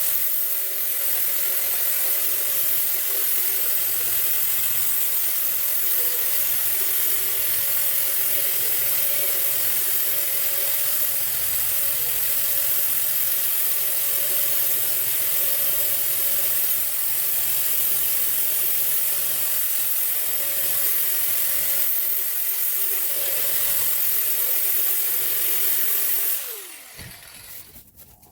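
Handheld power tool scrubbing rust off the steel of a car trunk lid, running steadily with a hum under the scraping noise. Near the end it is let off and winds down, its pitch falling.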